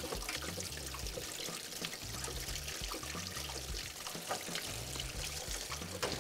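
Leftover water pouring and dribbling out of the open inlet line of a rainwater tank controller, with small knocks of the plastic filter housing being refitted. A soft bass line of background music runs underneath.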